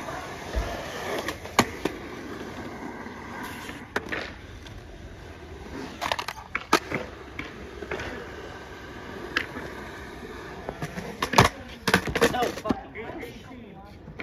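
Skateboard wheels rolling on smooth concrete with a steady rumble, broken by sharp clacks of the board's tail popping and landing. There are a few single clacks, then a quick cluster of them near the end.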